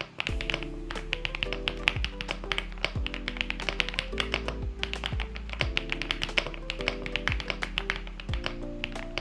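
Rapid typing on a stock gasket-mounted mechanical keyboard with linear switches, a polycarbonate plate and PBT keycaps: a fast run of sharp key clicks and clacks. Background music with sustained chords and a deep beat about once a second plays underneath.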